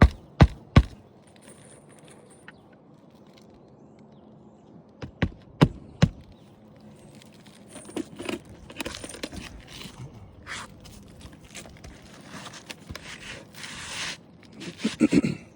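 Hammer driving roofing nails through asphalt shingles into the roof deck: two sharp strikes near the start, three more around five to six seconds in, and a quick run of knocks near the end. In between, the shingles rustle and scrape as they are handled.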